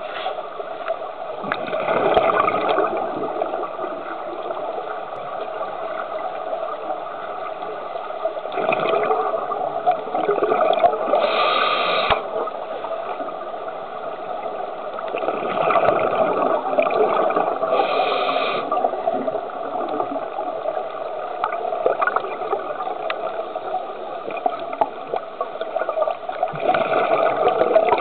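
Scuba diver breathing underwater through a regulator, heard through the camera's housing. Every several seconds there is a gush of exhaled bubbles, with shorter hisses of inhalation between them, over a steady hum.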